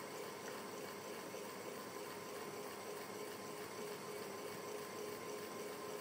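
Ceiling fan running: a soft, continuous rush of moving air with a faint steady hum.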